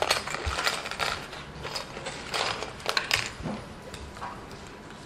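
Small hard plastic parts, the black casing pieces of the MK802 HDMI stick, clicking and clattering irregularly as gloved hands pick through a tray of them, with a cluster of louder clicks a little past halfway.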